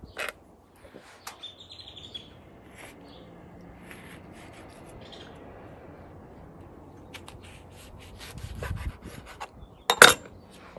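Chef's knife cutting tomatoes on a wooden cutting board: scattered light knocks of the blade against the board, with one louder knock near the end. Birds chirp briefly in the background.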